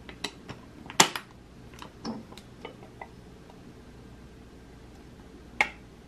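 Hard plastic clicks and knocks of a vintage Lucite box purse and its brass clasp being handled and its hinged lid opened: several sharp clicks, the loudest cluster about a second in, a few lighter ones around two to three seconds in, and one more click near the end.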